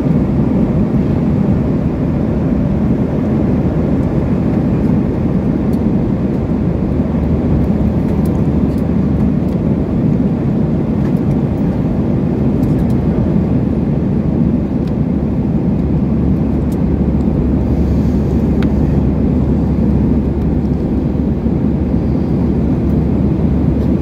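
Steady low roar of jet engines and airflow heard inside an airliner's cabin in flight.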